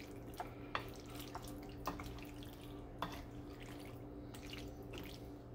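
Wooden spoon stirring penne and sausage through a thick tomato sauce in a frying pan: faint wet squelching with a few soft clicks.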